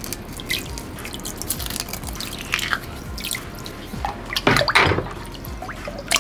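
Caustic soda flakes pattering into water in a plastic jug, then a metal utensil stirring the water, with small clicks and splashes and one louder swish of water about four and a half seconds in.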